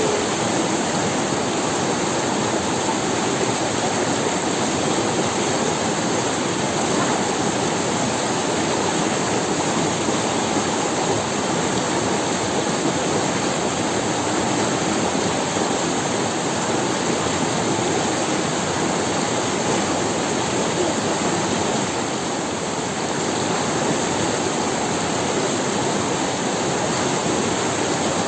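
A forest river running over stones: a steady, unbroken rush of water.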